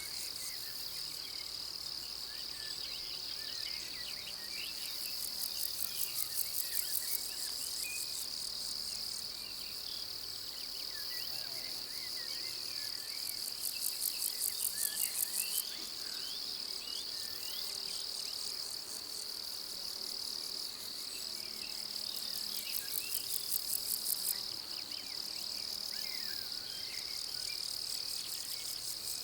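Summer pasture insects stridulating: a steady high-pitched trill holds throughout, and three times a rapid pulsing buzz swells up for a few seconds and stops.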